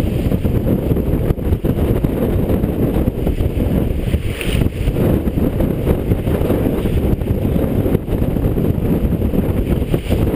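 Steady rumble of wind buffeting the microphone, with water rushing and foaming along the hull of a sailboat heeled over and sailing fast. There is a brief louder hiss about four and a half seconds in.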